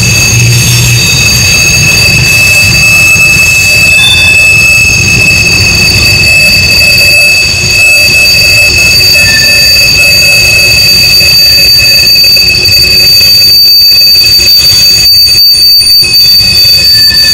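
Freight train's steel wheels squealing steadily on a tight curve, several high tones sounding at once, over the low rumble of the passing boxcars.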